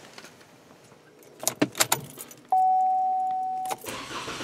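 Car keys jangle as the key goes into a 2013 Chevy Malibu's ignition. A steady electronic chime then sounds for about a second. Near the end the engine cranks and starts, a sign that the newly installed battery works.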